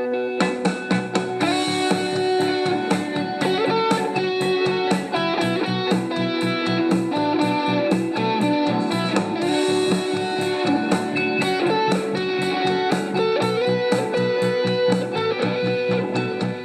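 A Turkish pop song with plucked and strummed electric guitar and a steady beat, played through a JBL Bluetooth speaker for a sound-quality test. The sound turns brighter and fuller about half a second in.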